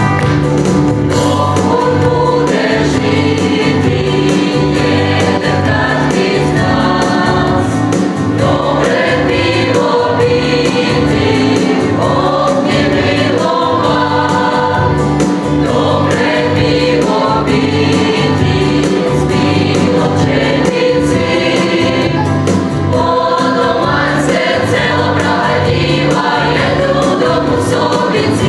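Mixed folk choir of men and women singing a song together in several voice parts, loud and steady throughout.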